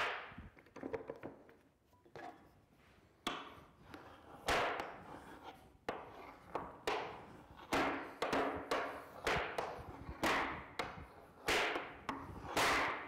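Hardened steel burnisher drawn along the edge of a steel cabinet scraper, metal scraping on metal in about a dozen short strokes that come faster after the first few seconds. This is the burnishing stage of sharpening, turning a hook on the scraper's edge.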